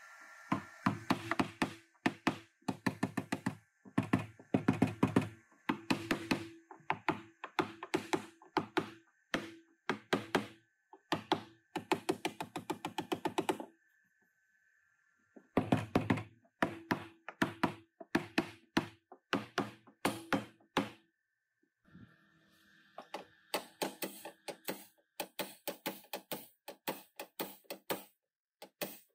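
Body hammer striking the car's sheet-metal trunk floor and rear quarter panel, beating out collision dents in fast runs of blows with short pauses between, the steel ringing under each run.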